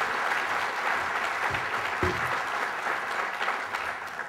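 Audience applauding steadily, with a brief low thump about two seconds in; the applause cuts off suddenly at the end.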